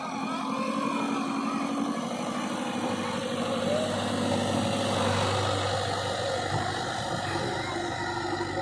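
Diesel engine of a JCB 3DX backhoe loader running steadily, its note shifting a few times.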